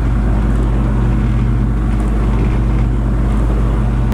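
Sailboat's inboard engine running steadily under way, an even low drone that does not change.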